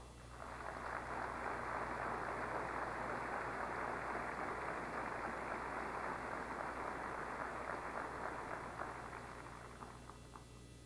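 Delegates in the assembly hall applauding. The applause swells in within the first second, holds steady, then dies away with a few last separate claps near the end.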